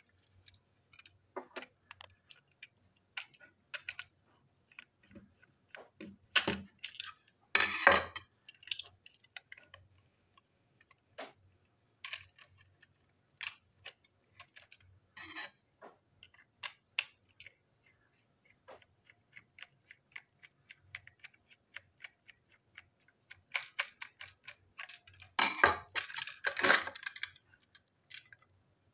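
Hard plastic toy train parts clicking, tapping and clattering as they are handled and fitted back together, with louder clusters of knocks about six to eight seconds in and again near the end.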